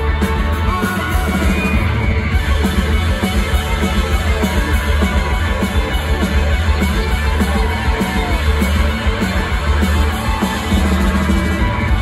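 Live rock band playing loud: distorted electric guitars over pounding drums and bass, continuous.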